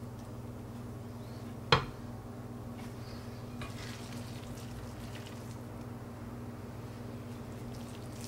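A fork works ground raw meat into a plastic container, with soft wet scraping and one sharp knock against the container about two seconds in, over a steady low hum.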